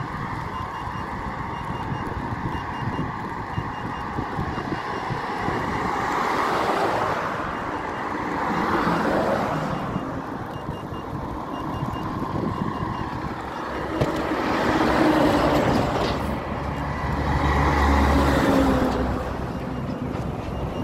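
Road traffic passing on the adjacent multi-lane road: about four vehicles swell and fade in turn, the last with a deep rumble. Wind rushes over the microphone as the rider moves.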